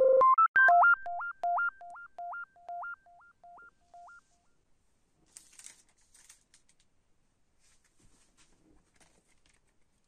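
Short synthesizer intro jingle: a few quick stepping electronic notes that echo back and forth between two pitches, fading out after about four seconds. Then faint rustles and scrapes of a vinyl LP sleeve being handled on a wooden table.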